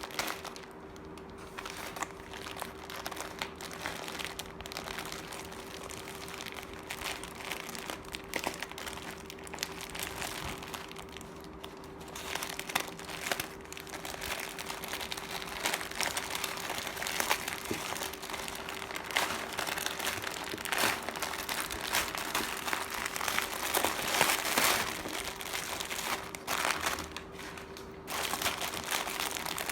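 Packaging crinkling and crumpling as gifts and parcels are handled and unwrapped: a long run of irregular rustles and crackles, over a faint steady hum.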